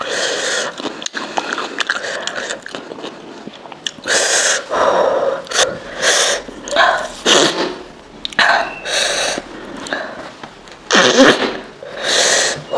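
A person breathing out and in sharply through the mouth and nose after eating very spicy food: about nine short hissing breaths and sniffs, starting about four seconds in.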